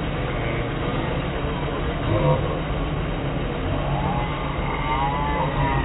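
Electric air blower keeping an inflatable bungee run inflated: a steady low hum. A person's voice calls out briefly about four seconds in.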